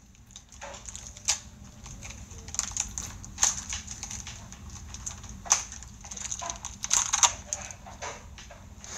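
Shiny foil-plastic wrapper crinkling and crackling as it is handled, in irregular bursts of sharp crackles with a few louder ones.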